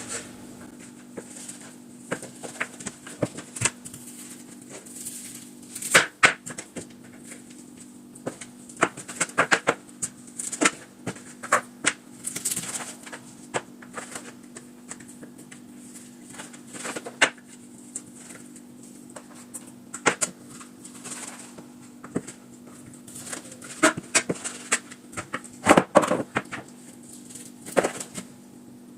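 Irregular clicks, knocks and clatter from chicken legs and thighs being handled and cleaned with kitchen utensils and a bowl, over a steady low electrical hum.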